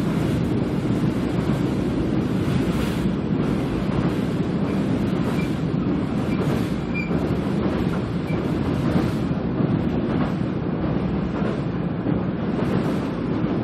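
Seoul Line 1 electric train (Mitsubishi GTO-VVVF stock) running at speed across a steel truss bridge, heard from inside the car: a steady, dense rumble of wheels on the rails, with a few faint short high squeaks around the middle.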